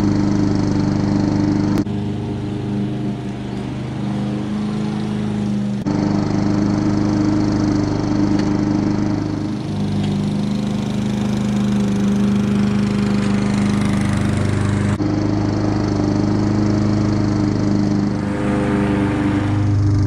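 Hayter 41 Pro petrol rotary lawn mower engine running steadily at cutting speed as it mows grass. Its tone changes abruptly several times.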